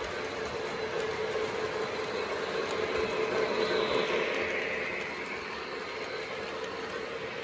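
O gauge model steam locomotive, Southern 4501, and its passenger cars rolling past on the track with a steady hum and wheel rumble. It grows louder about three to four seconds in as the locomotive passes closest, then eases as the cars roll by.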